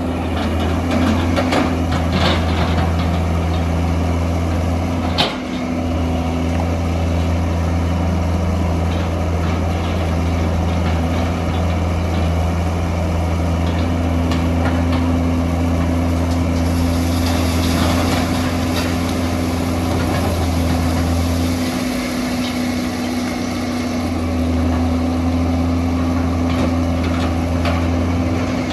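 Hitachi EX200 hydraulic excavator's diesel engine running steadily while the machine works. A single sharp knock comes about five seconds in, and a hiss rises over the engine for several seconds past the middle.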